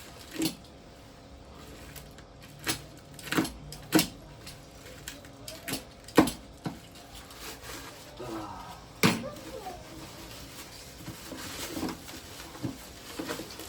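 Cardboard boxes and plastic packaging being handled during an unboxing: a dozen or so scattered knocks, taps and clicks, with light rustling between them.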